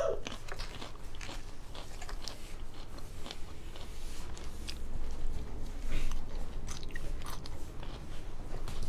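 Close-miked chewing and biting of food, with irregular crunchy, wet clicks throughout.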